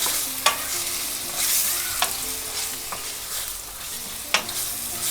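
Marinated chicken pieces sizzling as they shallow-fry in hot oil in a pan, with three sharp clicks of a utensil against the pan as they are stirred.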